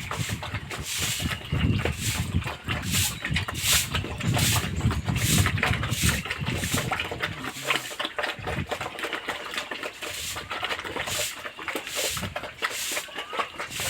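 Pigs grunting, with many short clicks and rustles; the grunting is strongest in the first half and fades after about eight seconds.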